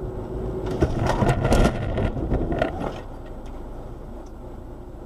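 Car crash heard from inside a car: steady road and engine noise, then a run of loud bangs about a second in and a few more near three seconds as the vehicles hit. The noise then settles lower and the sound cuts off near the end.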